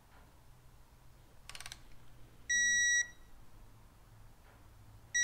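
Digital torque wrench on a cylinder head bolt: a brief run of ratchet clicks, then a steady half-second beep about two and a half seconds in, signalling that the bolt has reached its set torque. A second beep starts right at the end.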